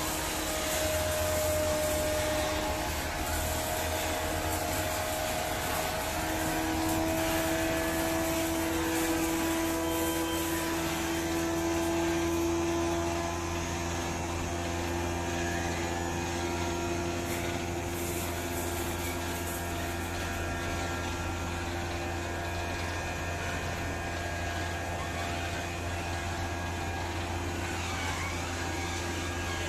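Screw-type oil expeller running under load, its electric drive and pressing screw giving a steady mechanical drone with a strong low hum. The drone's pitch shifts slightly in the first dozen seconds and it runs a little quieter after about thirteen seconds.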